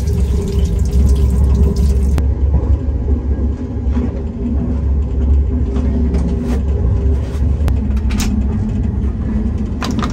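Water running from a pedal-operated tap into a stainless-steel sink, cutting off suddenly about two seconds in, over the steady low rumble of a KTX high-speed train in motion. A few short clicks follow later.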